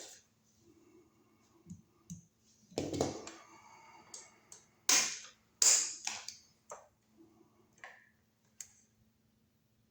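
Scattered sharp clicks and light knocks of hand work on electrical wiring and parts, about half a dozen, the loudest about three seconds in and twice more between five and six seconds.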